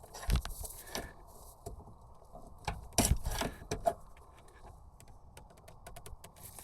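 Scattered clicks and knocks of handbrake-cable parts being handled and pushed to fit a part that will not slide in. The loudest knocks come about three seconds in, followed by a run of light ticks near the end.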